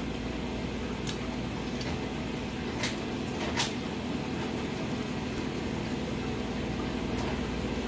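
Steady background hum, with a few faint short clicks as a toasted grilled cheese sandwich is bitten and chewed.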